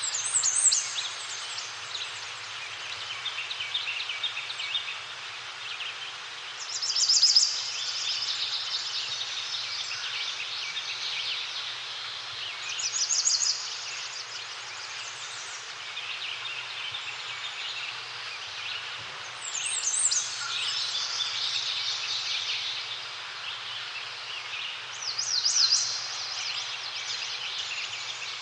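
Forest birds singing: one bird repeats a loud, high song phrase about every six seconds, over a steady chorus of other birds' chirps.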